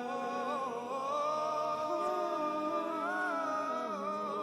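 Male a cappella vocal group holding sustained chords in close harmony, the upper voice shifting pitch about a second in and again around three seconds in, near the end of a song.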